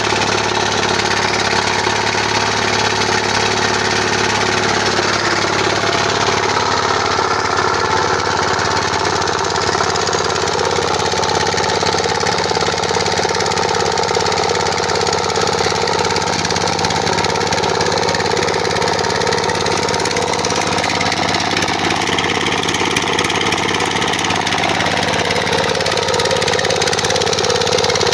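F170 4 hp single-cylinder diesel engine running steadily, its tone shifting about six seconds in.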